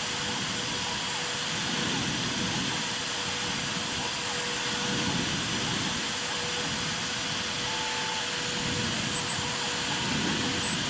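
Hobby CNC router running while engraving MDF: a steady spindle hiss and hum, with a lower sound that swells and fades every two to three seconds as the machine moves through the cut.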